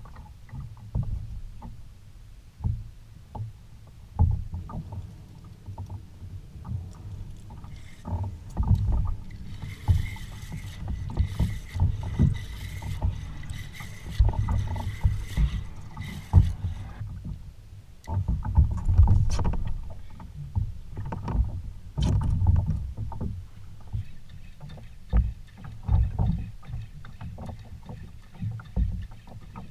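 Water slapping and knocking against a plastic kayak hull on ocean chop, with uneven low thumps and wind buffeting the microphone. For about seven seconds in the middle, a hiss with a thin steady whine joins in.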